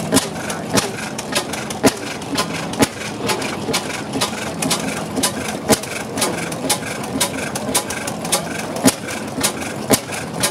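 Farrar & Trefts single-cylinder oilfield gas engine running slowly: a sharp beat about once a second, with lighter mechanical clicking between the beats.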